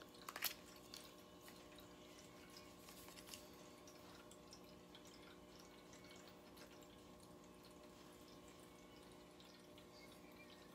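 Near silence: faint room tone with a steady hum, broken by a sharp click about half a second in and a few small ticks soon after and around three seconds in.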